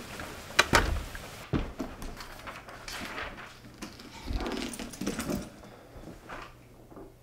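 A wooden door knocks shut about a second in, the loudest sound. It is followed by softer handling noises: a bag set down and papers rustled on a table.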